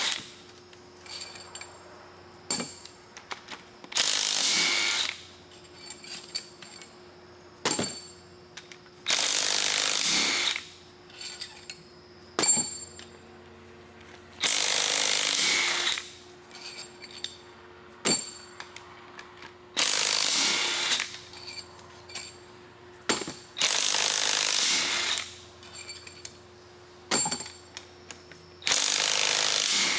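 DeWalt brushless half-inch cordless impact wrench hammering cylinder head bolts loose, in six bursts of about a second each, roughly every five seconds. Sharp clicks and clinks of the socket and loosened bolts come between the bursts.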